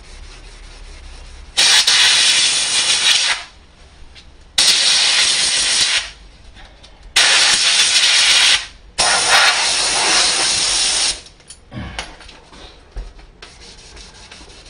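Compressed-air blow gun blasting the sanding dust out of a sheet of 500-grit dry sanding paper: four loud hissing bursts of about one and a half to two seconds each. After the last burst, faint hand-sanding rubbing resumes on the car's door panel.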